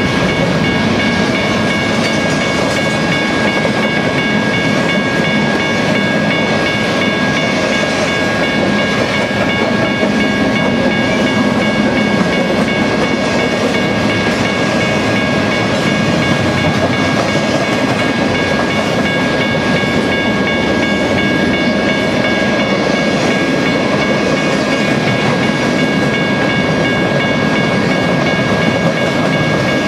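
Empty double-stack well cars of a freight train rolling steadily past, a continuous noise of wheels on rail. Several steady high-pitched tones ring over it throughout.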